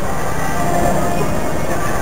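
Music playing over a dense, steady background noise.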